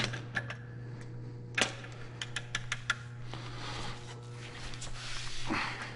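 Ratchet head of a long torque wrench clicking in short runs as the main bearing cap bolts of a Detroit Diesel Series 60 block are tightened, over a steady low hum.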